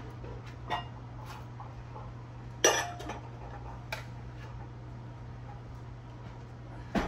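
Stacked mixing bowls knocking and clinking together as they are lifted out of the drawer under the oven. There are a few separate knocks, and the loudest, about two and a half seconds in, rings briefly. A steady low hum runs underneath.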